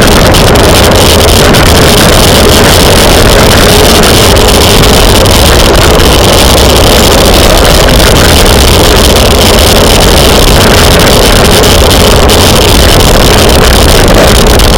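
Steady, loud wind rushing over a cyclist's camera microphone at riding speed, a dense roar that overloads the recording.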